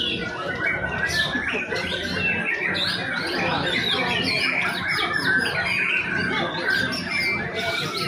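Many caged white-rumped shamas (murai batu) singing at once: a dense, unbroken tangle of overlapping whistles, chirps and quick pitch glides.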